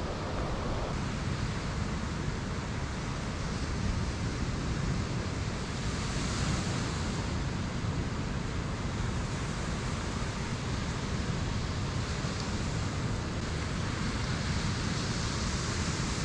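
Ocean surf washing steadily onto a sandy beach, mixed with wind on the microphone.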